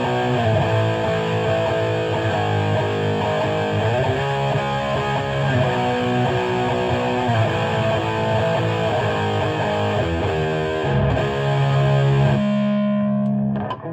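High-gain distorted electric guitar riffing in C-sharp tuning: a Jackson Kelly through a Peavey 6505 II head into a Marshall 1960 4x12 cabinet, freshly rewired with heavier-gauge wire and sealed with caulk, which the player finds sounds a little tighter. It is recorded on a cell phone. Near the end a held chord rings and is cut off.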